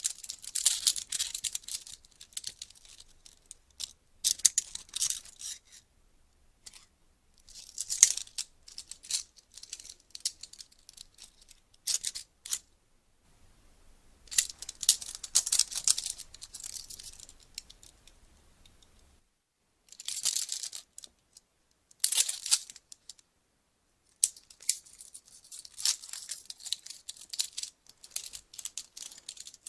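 Police handcuffs handled in repeated short bursts of metallic ratchet clicks and rattling, with brief pauses between them.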